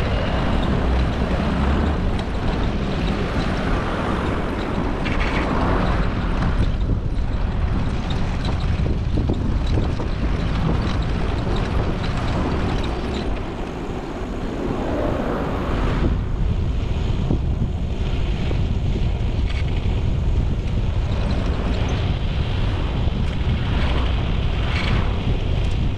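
Wind buffeting the microphone over steady road and traffic rumble from a moving vehicle on a city street.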